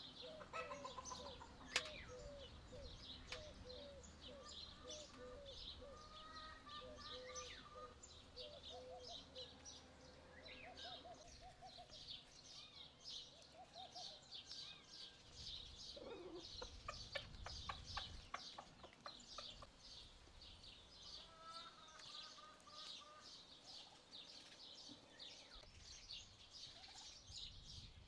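Chickens clucking with strings of short repeated notes, against a steady chatter of small birds chirping; a single sharp click about two seconds in.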